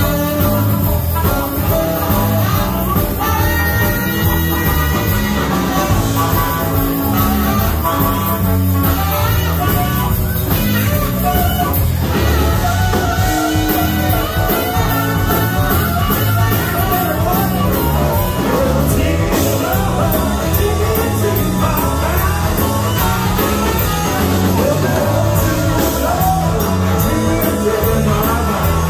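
A live blues-rock band playing loudly, with electric guitars, bass, drums and saxophone, and singing at times.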